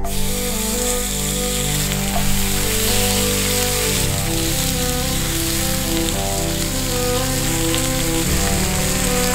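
Slices of pork belly sizzling steadily on a hot griddle, under background music whose held chords change twice.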